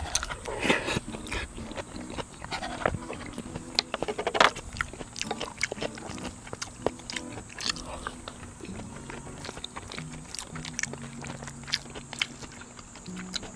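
Close-up eating sounds of a person chewing jjajangbap (rice in black-bean sauce), with scattered sharp clicks of a utensil, busiest in the first few seconds.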